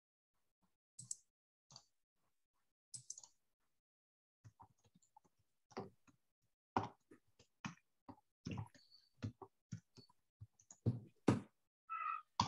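Computer keyboard being typed on: irregular key clicks, a few scattered at first, then quick runs of keystrokes from about four seconds in. A brief tone sounds near the end.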